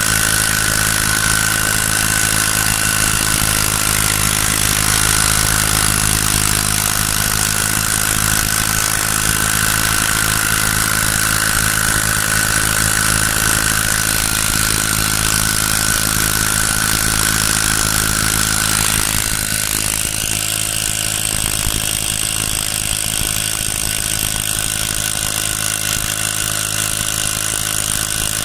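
Small brush-cutter engine rigged as a boat motor, running steadily. A little past two-thirds of the way through, its note changes and it runs a little quieter.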